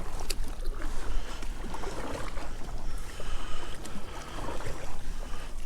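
Kayak paddling into the wind: water splashing and lapping at the hull, with wind buffeting the microphone in a steady low rumble.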